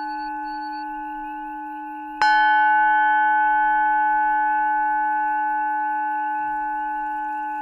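Tibetan singing bowl struck once about two seconds in, its ring sounding on and slowly fading over the still-sounding ring of an earlier strike. Its loudest tone sits near 850 Hz, matching the 852 Hz tuning the track is built around. A faint high beeping pulses about twice a second during the first second.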